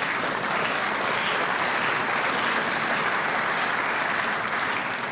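Audience applauding, a steady spell of clapping that starts to ease off near the end.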